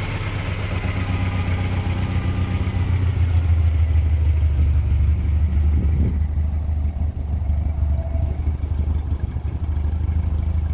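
Opel Rekord D's engine idling steadily with a deep, even exhaust note. The low rumble grows louder about three seconds in, while the higher mechanical noise from the engine bay fades.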